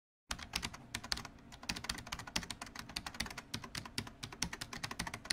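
Rapid computer-keyboard typing clicks, irregular and about ten a second, starting abruptly out of silence about a third of a second in.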